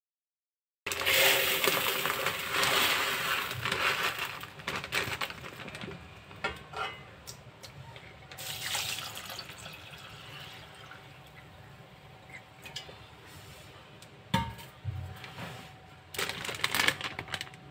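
Dry rice grains poured from a plastic bag into a plastic bowl with a loud rattling rush, followed by water poured from a steel pot over the rice to soak it. A single sharp knock near the end.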